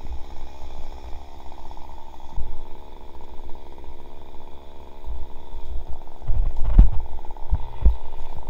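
Stihl MS 362 C-M two-stroke chainsaw idling steadily, with dull low thumps over the last few seconds.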